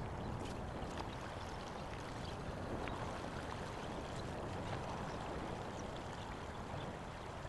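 Steady rushing of water with a low rumble underneath and a few faint clicks.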